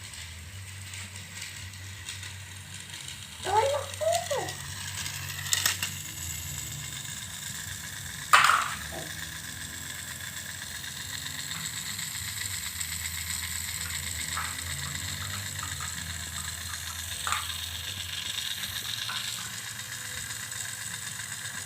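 Battery-powered toy train running, its small motor and plastic gears whirring and clicking steadily, with a sharp click about eight seconds in.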